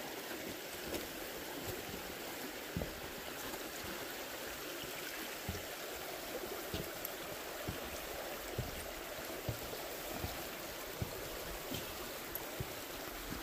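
Creek water flowing steadily below, with scattered light knocks and taps every second or so.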